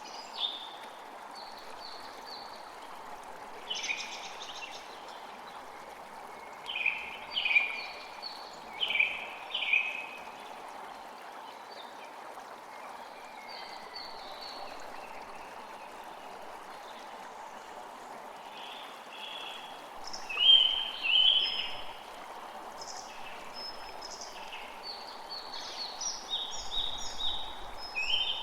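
Birds chirping in scattered short, high calls over a steady rushing background. The loudest chirps come about two-thirds of the way through.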